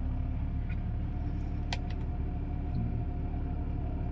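BMW E46 engine idling steadily, a low even hum, running quietly with its freshly replaced alternator bearing no longer making noise. A single light click comes a little under two seconds in.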